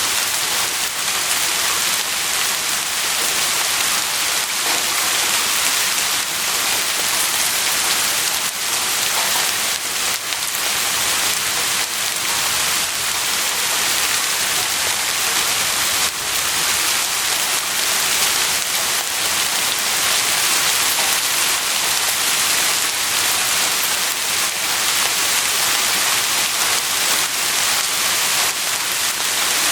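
Heavy rain falling steadily, a dense even hiss with scattered drops tapping on a surface.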